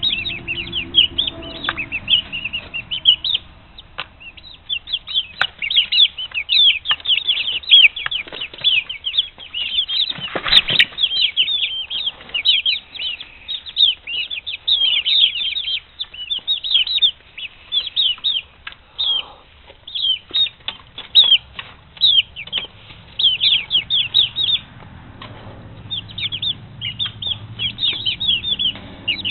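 A flock of six-week-old chicks peeping in a continuous chorus of short, high-pitched chirps. About ten seconds in there is a brief flurry of wing flapping.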